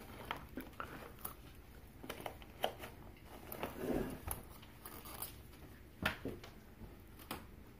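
Faint scattered clicks, taps and rustles of a plastic side-channel light-blocker strip being handled and pressed into place against a window frame.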